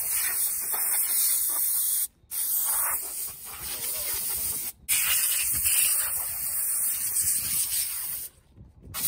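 Compressed-air blow gun hissing steadily as it blasts water out of a car's body crevices. The air cuts off briefly twice, then stops about eight seconds in, with one short blast near the end.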